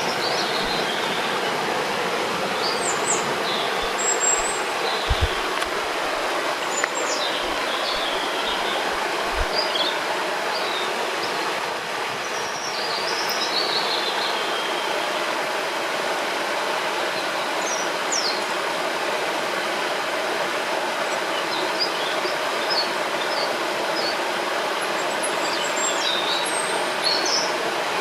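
Steady rushing of a river, with scattered short bird chirps and calls above it.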